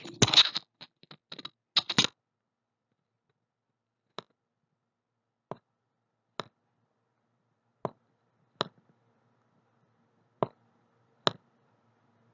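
Sharp, isolated clicks as a word is handwritten onto an on-screen worksheet: a quick cluster in the first two seconds, then single clicks every second or so, about seven in all.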